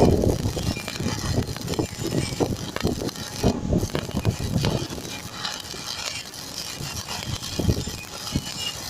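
Stick (shielded metal arc) welding arc crackling irregularly as a 3.2 mm electrode burns along a vertical butt joint on steel H-beam, welded bottom to top.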